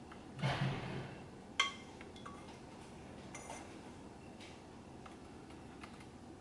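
A spoon scraping and clinking against a stainless steel saucepan while spooning out a melted mixture: a short clatter near the start, one sharp ringing clink about a second and a half in, then a few light taps.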